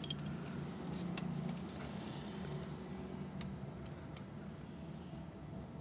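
Scattered light clicks and ticks over a steady low hum, with one sharper click about three and a half seconds in.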